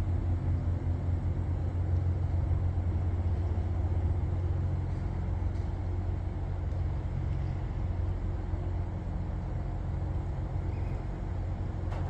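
Low, steady engine rumble with a fine throbbing texture, fading a little toward the end.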